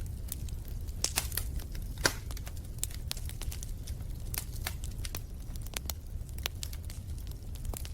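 Wood fire in a fireplace crackling, with irregular sharp snaps and pops over a low steady rumble; one louder pop about two seconds in.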